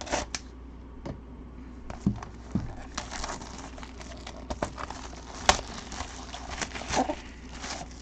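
Cellophane shrink wrap being torn and peeled off a sealed trading card box: irregular crinkling and crackling, with the sharpest crackle a little past halfway.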